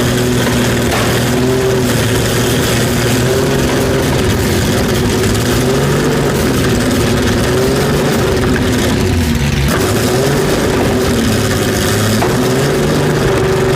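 Porsche 917's air-cooled flat-twelve racing engine running loud at low revs, its pitch rising and dipping slightly.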